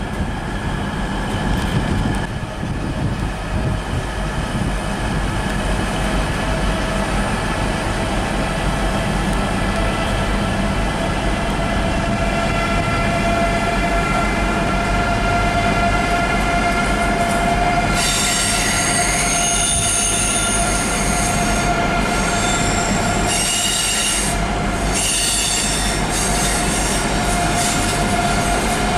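Eurostar high-speed train running on the tracks: a steady rumble with a whine that rises slightly in pitch, and from about two-thirds of the way through, high-pitched wheel squeal that comes and goes. In the first two seconds the sound is of a Class 395 Javelin unit passing close.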